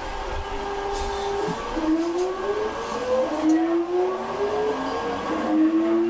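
Nankai Series 2000 electric train's Hitachi GTO-VVVF inverter and traction motors whining as the train accelerates. The pitch climbs in a series of glides that each drop back and climb again, the inverter stepping through its switching modes, over a steady running rumble that grows louder.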